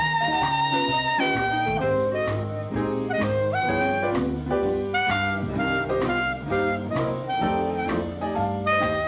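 Upbeat jazz music: a horn lead holds one long note for about the first second, then plays a quick melodic line over bass and drums.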